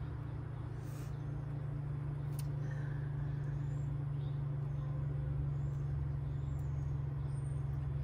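A steady low mechanical hum, with a couple of faint clicks and rustles as cherry tomatoes are picked off the vine by hand.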